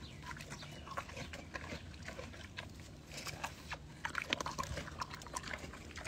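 A pig chewing and crunching into a whole watermelon, a run of short, irregular wet crunches and smacks.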